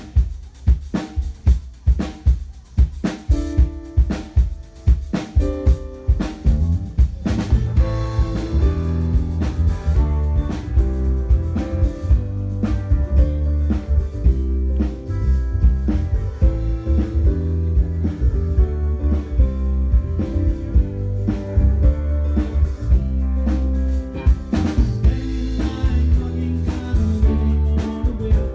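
Live rock/pop band playing, led by a drum kit. The first several seconds are mostly sharp snare and kick drum hits, then a steady bass line and chords fill in for a full-band groove.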